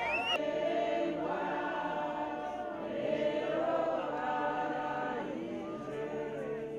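A group of mourners singing together unaccompanied, several voices in harmony holding long notes, the tune rising and falling.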